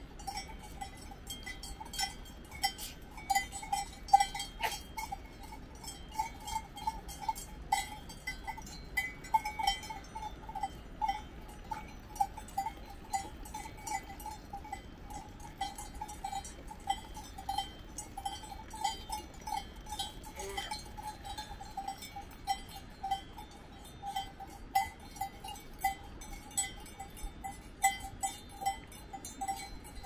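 Bells on grazing cows clanking unevenly and continually, several strokes a second over a steady ringing tone.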